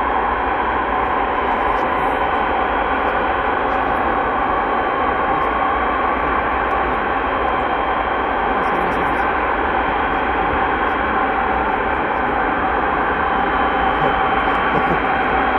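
Antonov An-225 Mriya's turbofan engines running on the ground, a loud, even drone with a steady whine in it that neither rises nor falls.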